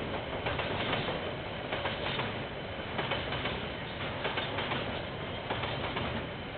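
KiwiRail train rolling past, a steady rumble of wheels on rails with many irregular clicks and knocks, heard dull through a security camera's microphone.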